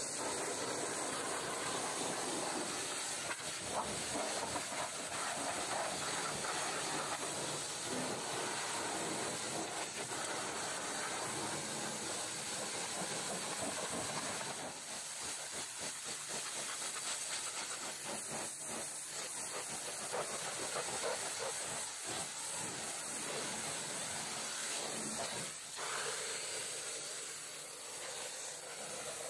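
High-pressure washer jet hissing steadily as it blasts mud off a truck's chassis, tyre and wheel rim, with water spattering. The sound changes about halfway through and again near the end as the jet moves onto different surfaces.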